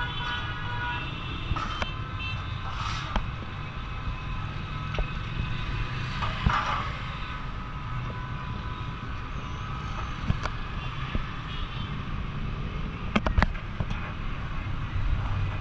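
Steady low street rumble, like passing traffic, with a few level tones in the first second and a cluster of sharp clicks or clanks near the end.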